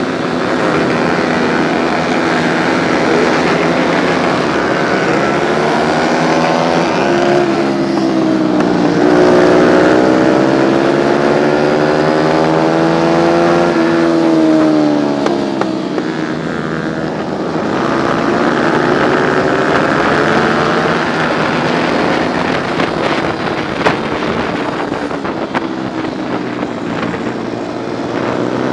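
125 cc four-stroke racing motorcycle engine at full throttle from a race start, revs climbing in the first half of the clip, then dropping steeply about halfway through and rising again. Other race bikes' engines are mixed in.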